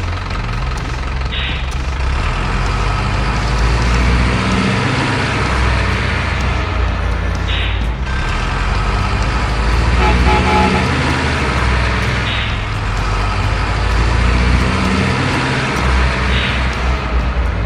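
Big diesel truck engine running with a steady low rumble, broken by short hisses about every four to five seconds.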